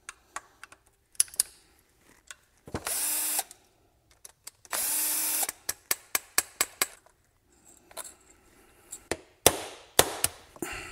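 Hand tools working on a motorcycle's rack of carburetors: a screwdriver clicking on the carb screws and a hammer tapping the carb bodies, with sharp knocks throughout and a quick run of taps about six seconds in. Two brief hissing bursts, each under a second, come about three and five seconds in.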